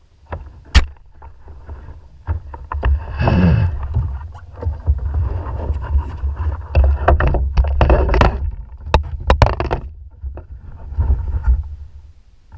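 Knocks, bumps and scraping on a plastic fishing kayak's hull and deck as the occupant shifts his weight and puts his feet up, over a steady low rumble of wind on the microphone. The clatter is loud and irregular, busiest between about three and ten seconds in.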